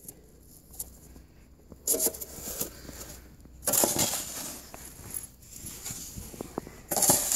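Dogue de Bordeaux (French mastiff) snuffling with its nose in the snow: three short, noisy bursts.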